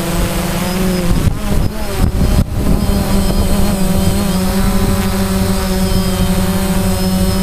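DJI Phantom quadcopter's motors and propellers running, heard from the GoPro mounted on it: a steady hum whose pitch wavers slightly as the throttle changes, with a few brief dips in the first few seconds.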